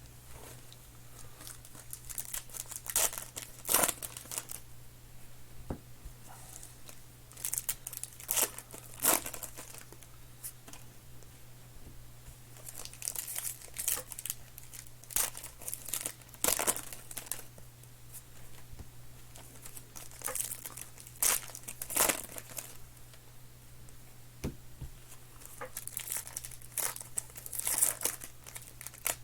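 Trading card pack wrappers being torn open and crinkled by hand, in irregular clusters of sharp crackling a few seconds apart, over a steady low hum.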